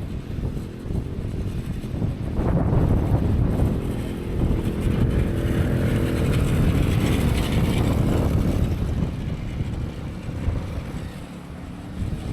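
An engine running, a low rumble with a faint hum in the middle, with wind on the microphone.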